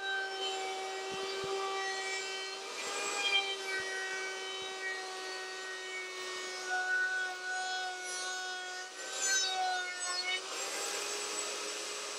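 Router running in a benchtop router table, a steady high whine whose pitch dips slightly as the wooden board is fed along the bearing-guided edge-profiling bit, with a rasping cutting noise swelling each time the bit takes wood.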